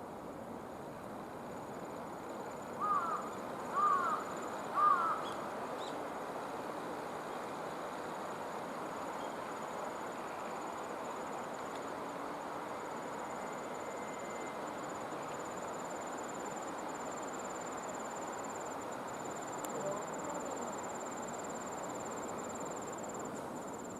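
Outdoor ambience of an insect, cricket-like, singing a thin steady high trill that gets stronger toward the end, over a steady hiss of background noise. Three short calls come about a second apart, a few seconds in.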